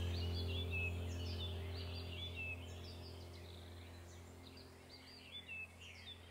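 Birds chirping over a low, steady droning tone that slowly fades away, as in a relaxation music track with birdsong.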